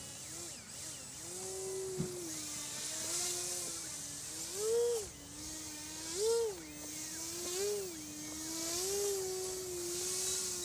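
The electric motor and propeller of a small foam RC plane whine steadily. About four times in the second half the pitch swells sharply up and falls back, as the throttle is pushed in short bursts.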